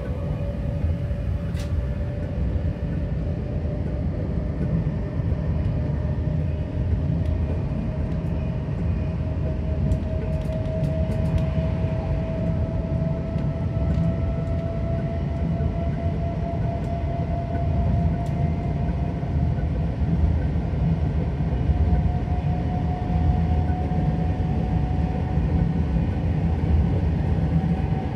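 Train running: a steady low rumble with a faint tone that climbs slowly in pitch, and a few light clicks about ten seconds in.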